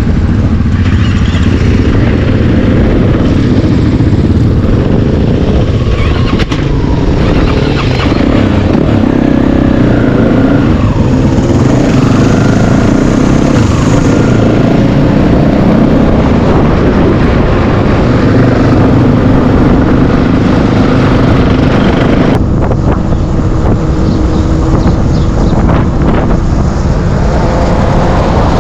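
Yamaha WR450F single-cylinder four-stroke enduro motorcycle engine running on the move, its pitch rising and falling with the throttle and steadying near the end.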